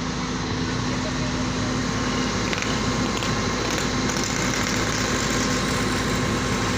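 Steady engine hum with a constant low tone under a dense, even background noise.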